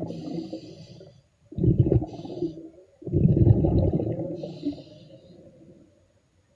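Underwater breathing of a diver: exhaled air bubbling out in three bursts of low bubbling noise, with short hisses of breath through the breathing gear between them, fading out in the last second or so.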